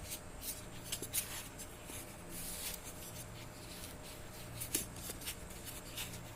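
Plastic motorcycle side-mirror parts being handled and pushed into place by hand: a series of short scratchy scrapes and light clicks over a faint steady hum.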